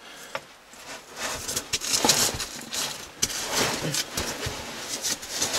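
A person crawling through a narrow crawl hole: irregular scraping and rustling of muddy overalls and boots against the sandy floor and limestone walls.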